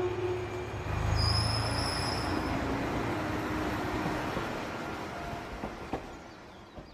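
Train running on rails, with a brief high-pitched squeal about a second in, then the rumble gradually fading away.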